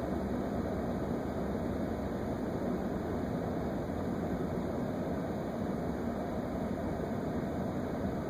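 Steady low rumble and hiss of a parked vehicle running, heard from inside its cab.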